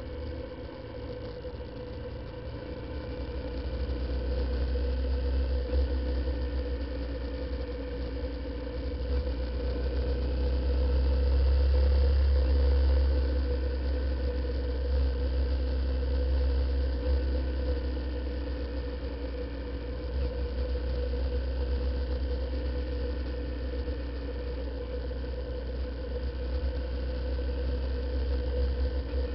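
Riding a Honda CBF125 motorcycle, recorded on a bike-mounted action camera: wind rumble on the microphone under the steady drone of the bike's engine. The rumble swells to its loudest about ten to thirteen seconds in, then eases back.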